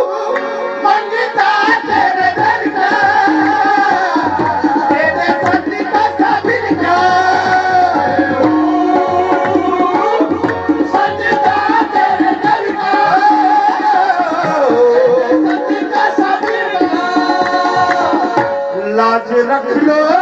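A man singing a devotional song into a microphone, amplified, over a steady held accompaniment and hand-drum strokes.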